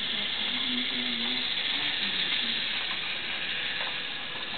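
Battery-powered Geotrax toy train running along plastic track, its small motor and gears making a steady whirring hiss.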